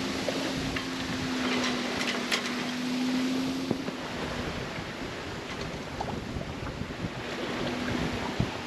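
Water rushing along a sailboat's hull at sea, with wind on the microphone. A steady low hum runs underneath and stops suddenly a little under four seconds in, coming back briefly near the end, with scattered small clicks and knocks.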